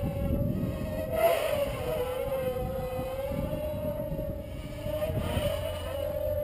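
ZMR250 carbon-fibre mini quadcopter in flight, its four DYS 1806 2300kv motors spinning Gemfan 5x3 props: a steady, mosquito-like buzz whose pitch wavers slightly up and down.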